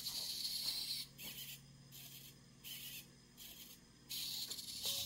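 Small servo motors in the legs of an XGO-Lite robot dog, whirring in a run of short bursts as it moves. The last and longest burst starts about four seconds in.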